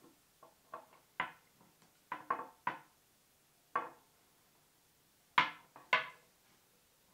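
A string of short knocks and taps as a paracord-wrapped axe is handled and shifted on a wooden tabletop, about ten in all, with the two loudest half a second apart about five and a half seconds in.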